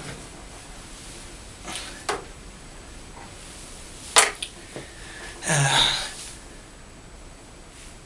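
Close handling noises: a few light knocks, a single sharp click about four seconds in, and a short noisy rustle or breathy burst near six seconds in.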